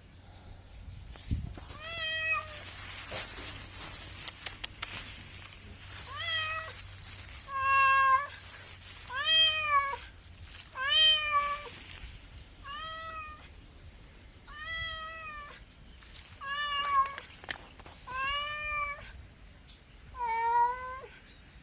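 A cat meowing over and over, about ten meows each under a second long, rising and then falling in pitch. There are a few short clicks about five seconds in.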